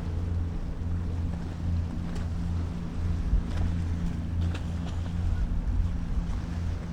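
Low, steady hum of a large ferry's machinery at the quay, with a few faint ticks now and then.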